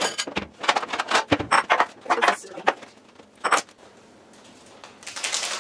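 A run of clicks, knocks and clinks as a kitchen cabinet door and dishes are handled. About five seconds in, a steady rustling hiss begins as a plastic spice packet is handled.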